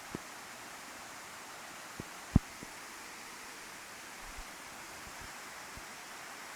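Waterfall rushing in a steady, even roar of falling water. A few dull low bumps are heard over it, with one sharp thump about two seconds in.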